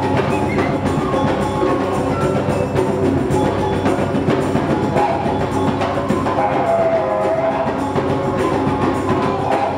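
Live ensemble music: hand drums and congas beat a dense, steady rhythm over a sustained didgeridoo drone, with a flute line briefly coming forward in the second half.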